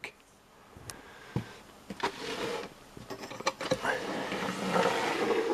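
Handling and movement noise as the amplifier is turned round on the bench to show its back: rustling and scraping with a few light knocks, busier in the second half.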